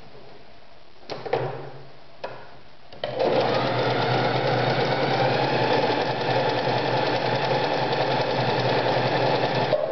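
Privileg Super Nutzstich 1511-1 domestic sewing machine running at a steady speed, stitching through fabric for about seven seconds. It starts about three seconds in, after a few light clicks and knocks, and stops just before the end.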